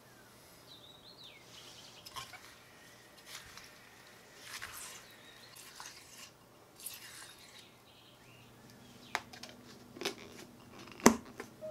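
Sugar poured over sliced strawberries in a glass bowl, then a silicone spatula stirring the sugared berries in irregular scraping strokes. Near the end a plastic Pyrex lid is pressed onto the glass bowl with a few sharp clicks, the last one the loudest.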